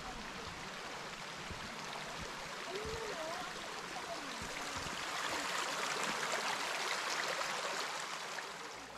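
Small rocky mountain creek flowing, a steady rushing water noise that swells a little in the second half.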